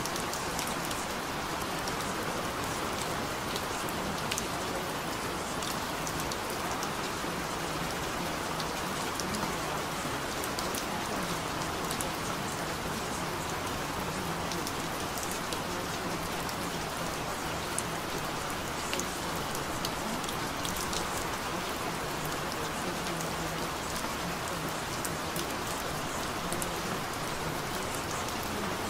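Steady hiss and patter of falling water, with small drop-like ticks scattered through it.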